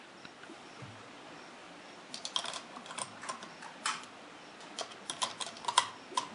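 An irregular run of light, sharp clicks and clacks, starting about two seconds in and lasting about four seconds, from a Yugoslav SKS 59/66A1 rifle being handled and loaded with a few rounds before firing.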